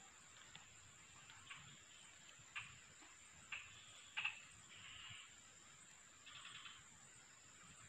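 Near silence outdoors: a faint steady high whine, with scattered faint chirps and a few short clicks.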